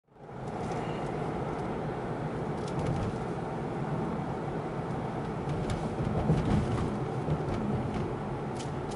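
Steady road and engine noise inside a moving car, fading in at the start, with a few faint light clicks.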